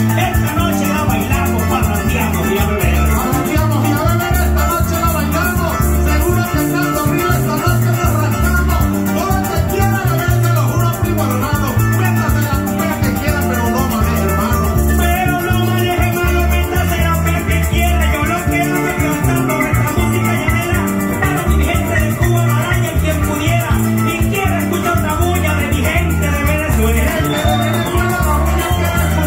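Venezuelan llanero music played live through a PA: a llanera harp and cuatro plucking a repeating joropo accompaniment with maracas shaking over it, and a man singing a verse of a contrapunteo into a microphone.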